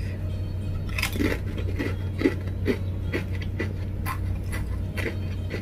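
Black ghost-pepper potato chips being bitten and chewed: a run of crisp crunches, about two to three a second.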